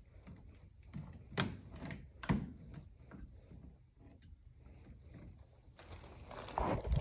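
Handling noise of a wall thermostat being fitted: scattered clicks and two sharp knocks about one and a half and two and a half seconds in, with a burst of rustling and knocks near the end.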